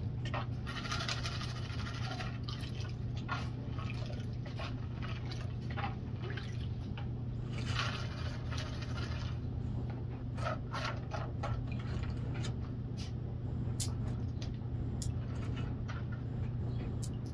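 Plastic gold pan of gravel being swirled and dipped in a tub of muddy water: water sloshing and splashing, with pebbles clicking and rattling against the pan, over a steady low hum.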